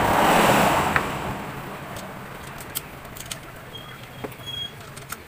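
A rushing noise fades away over the first two seconds. It is followed by scattered light clicks and taps as a 10mm T-wrench is set down and an engine's ignition coil is handled.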